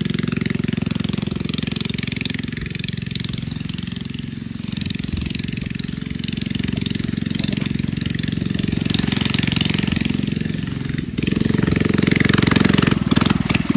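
Mini bike's small engine running with a fast, even pulse, its speed rising and falling and getting louder about eleven seconds in.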